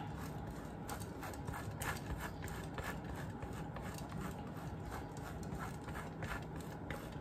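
A block of cheddar cheese being grated on a stainless steel box grater, a steady run of short scraping strokes.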